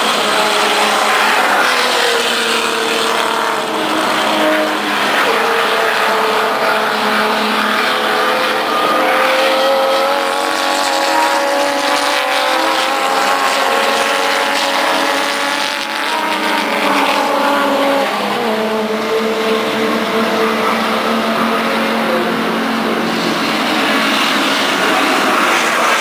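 Race car engine running hard on a circuit, its pitch climbing and dropping over and over as the car accelerates and slows.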